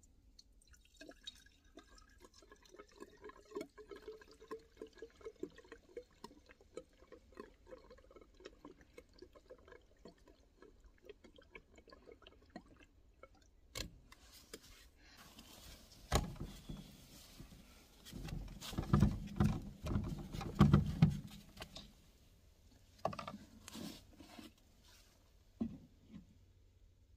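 Fuel glugging out of a plastic gas can into a chainsaw's fuel tank, the gurgle rising in pitch as the tank fills. Then a click and a louder spell of clunks and handling noise, with a few more knocks near the end.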